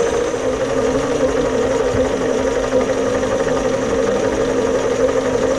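Chinese mini lathe running steadily, its motor and drive giving an even hum while it takes light finishing passes on an aluminium part.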